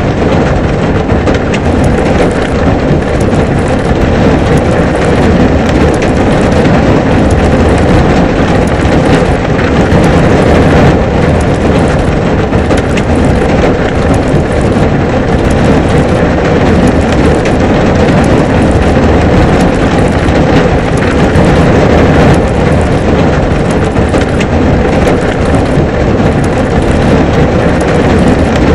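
Heavy rain falling steadily, loud and unbroken.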